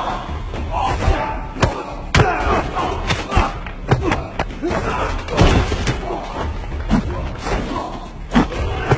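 Movie fight sound effects: a rapid, irregular series of punches, strikes and body impacts, with grunts and shouts of exertion between the blows.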